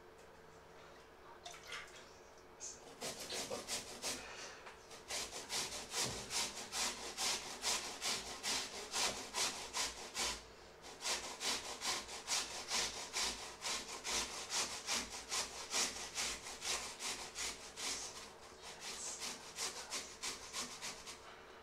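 Potatoes being grated on a handheld stainless-steel grater into a steel bowl: a steady run of rhythmic scraping strokes, about two to three a second, starting about three seconds in and pausing briefly near the middle.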